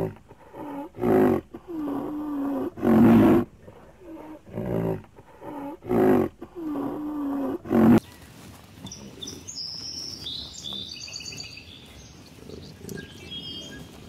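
Rhinoceros calling in a quick series of short, loud grunting calls, some bending up and down in pitch, one or two a second. About eight seconds in they stop abruptly, leaving a quieter stretch with birds chirping.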